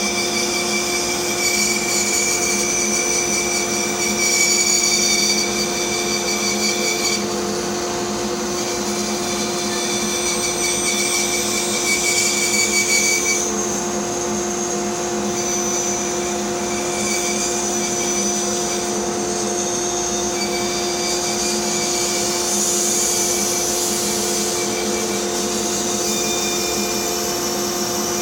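Bandsaw running steadily with a motor hum, its blade cutting through a wooden block; the higher cutting noise changes at several points during the cut.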